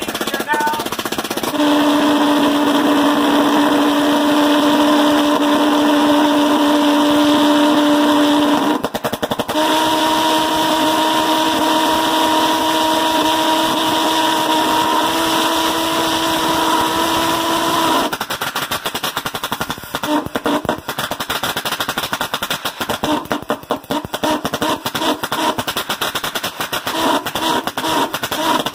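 Homemade Tesla-valve pulse jet engine running with a loud, steady buzzing drone after a second or so of sputtering pops. It cuts out briefly about nine seconds in and picks up again, its pitch stepping up a little. About eighteen seconds in it falls into rapid, irregular popping and stuttering.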